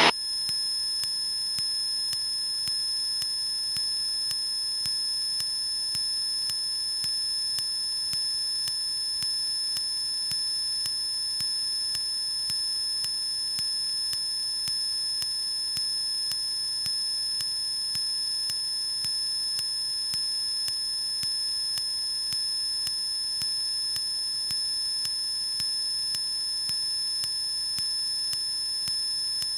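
A steady, high-pitched electrical whine made of several fixed tones, typical of noise on a light aircraft's intercom audio feed, running unchanged through the Cessna 152's takeoff and climb. The engine itself is barely heard.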